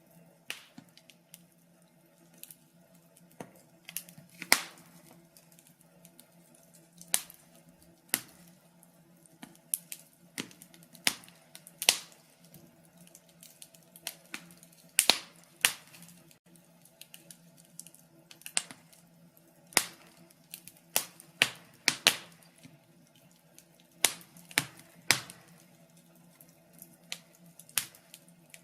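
Wood fire crackling in a fireplace: irregular sharp pops and snaps, several every few seconds and some in quick clusters, over a faint steady low hum.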